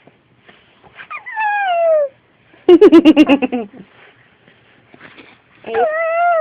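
Infant's vocalisations: a drawn-out squeal falling in pitch about a second in, a louder stuttering burst of voice in the middle, and another squeal that rises and then falls near the end.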